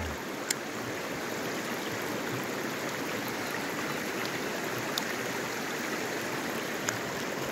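Steady rushing of a river's water running over shallows, with a couple of faint ticks about half a second in and near five seconds.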